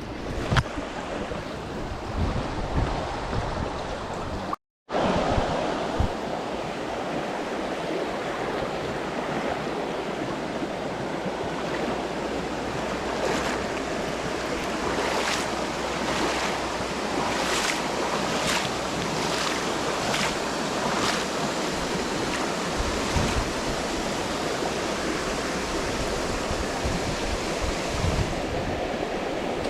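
Steady rush of flowing water, with wind noise on the microphone and a few short knocks or splashes. The sound cuts out completely for a moment about five seconds in.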